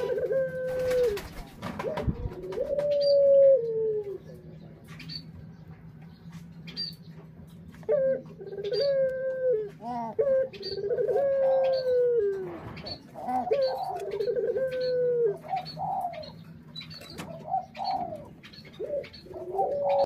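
Ringneck doves (Barbary doves) cooing: drawn-out, rolling coos that drop in pitch at the end. They come a few seconds apart at first, then more often and overlapping in the second half.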